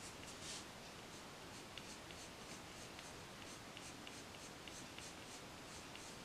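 Prismacolor coloured pencil scratching on paper in quick short strokes, about three a second, as the hair is shaded with flicking strokes; faint.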